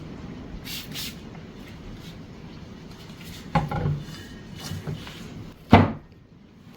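Objects being handled, with some clattering and one sharp knock near the end.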